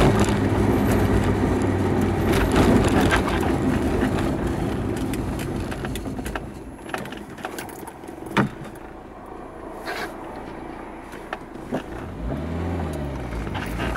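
Renault Supercinco Campus engine and road noise heard from inside the cabin, easing off and growing quieter as the car slows, with a few sharp knocks. Near the end the engine note rises and falls again as the car picks up.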